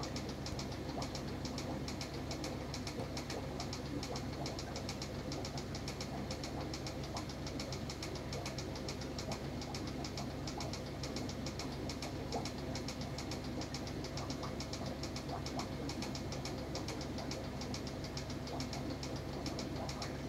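Aquarium equipment running: a steady mechanical hum with a fast, even rattle.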